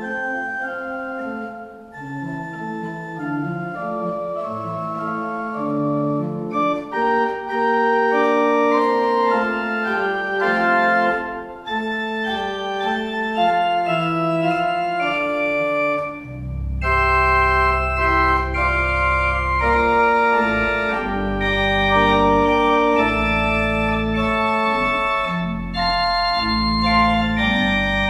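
Organ playing slow, sustained chords. About sixteen seconds in, deep bass notes come in under the chords and the music grows fuller and a little louder.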